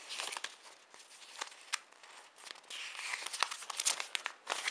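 Paper instruction leaflets being handled and unfolded: rustling and crinkling with many small crackles, getting louder about three seconds in.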